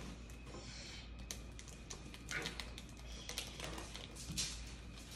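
Cardboard being handled: scattered rustles, scrapes and light taps, with a few louder scrapes in the second half.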